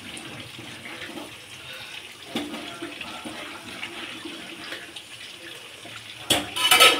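Water running and splashing steadily, with a louder burst near the end.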